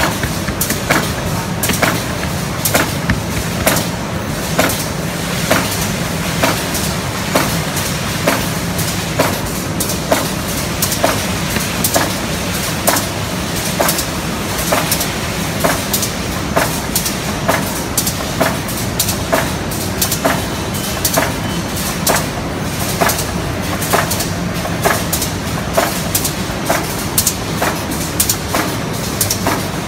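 HL0600C7 automatic irregular-shape die-cutting machine running: a steady low machine hum with a sharp clack repeating at an even pace, a bit more than once a second.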